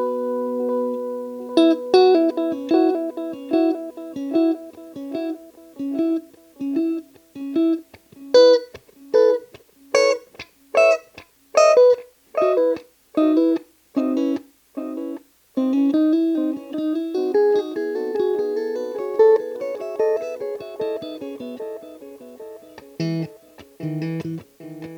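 Guitar played through a Wampler Ethereal delay and reverb pedal. A held chord fades out in the first second or so. Then come short picked notes, and from about 8 s on louder stabs a little under a second apart. In the last third the notes run together into a lingering wash of repeats and reverb, with lower notes near the end.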